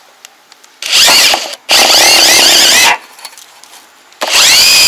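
Power drill driving screws: three runs of the motor whine, each rising in pitch as it speeds up. A short run comes about a second in, a longer one follows, and a steadier run starts near the end.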